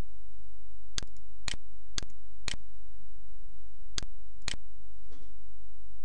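Six short, sharp clicks from the computer, half a second apart: four in a row, then a pause, then two more. A steady low hum runs underneath.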